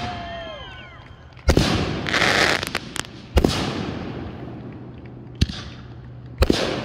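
Aerial fireworks going off. A sharp bang comes about a second and a half in, followed by about a second of crackling. Another bang comes about three and a half seconds in, a smaller pop near five and a half seconds, and another bang near the end.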